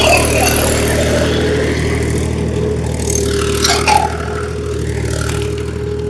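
Farm tractor's diesel engine running steadily under load while it pulls a tine cultivator with a plank leveller across the field, loudest at the start and easing off slightly.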